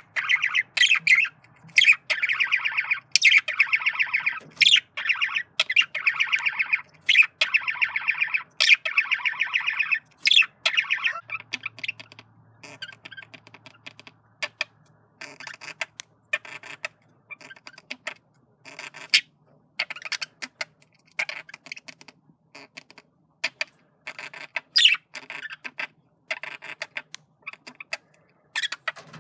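Male budgerigar's courtship warble: rapid chattering of clicks, chirps and squawky notes. Dense for the first third, then broken into sparser chirps and clicks.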